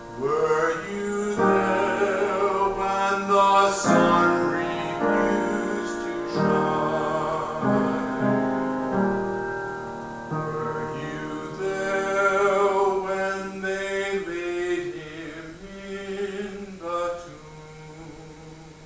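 A slow sacred song: a singer holding long notes over piano chords, fading out near the end.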